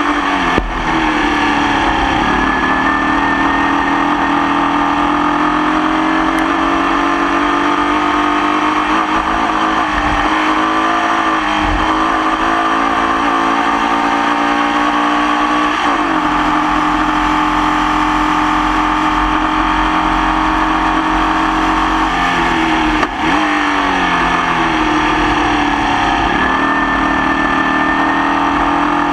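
Onboard sound of a Formula Vee racing car's air-cooled Volkswagen flat-four engine under race load. The revs climb steadily and drop sharply several times, near the start, around the middle and about three-quarters through. The engine runs with a nasty misfire.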